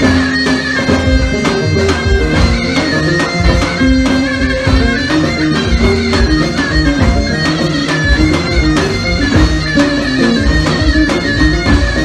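Instrumental passage of a Turkish folk-style song: held melody lines over a steady percussion beat, with no singing.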